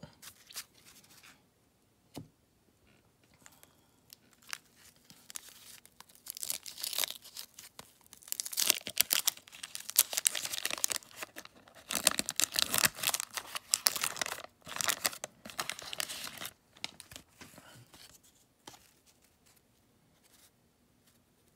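Wax-paper wrapper of a 1989 Donruss baseball card pack being torn open and crinkled, a run of irregular rustling and tearing sounds that is loudest through the middle of the stretch.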